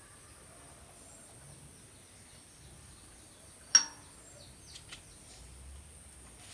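A single sharp metallic clink with a short ring about four seconds in, followed by two faint clicks, over a steady high insect drone.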